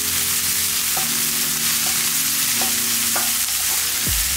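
Sliced onions sizzling in hot oil in a nonstick pan as a spatula stirs them, with a few light knocks of the spatula against the pan.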